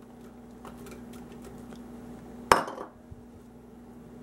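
Sliced celery dropping from a bowl into a slow cooker's stoneware crock in faint light taps, then one sharp clink of the bowl about two and a half seconds in, ringing briefly.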